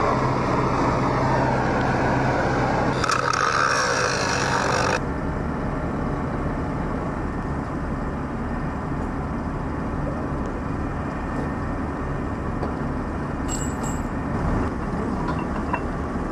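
A truck engine running steadily, with the hiss of an oxy-acetylene cutting torch burning out bolt holes in a steel tower base plate over the first few seconds. After a sudden change about five seconds in, the engine runs on alone, with a brief metallic clink near the end.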